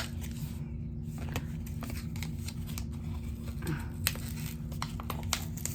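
Light handling noises, as of makeup items being picked up and set down: scattered small clicks and rustles over a steady low hum.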